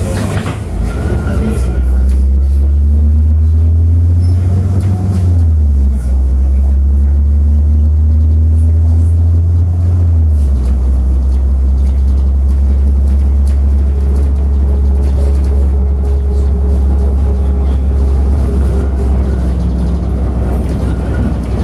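City bus engine and drivetrain heard from inside the passenger cabin, accelerating: the engine note climbs and then drops twice, about six and ten seconds in, as it shifts up, then settles into a steady cruise.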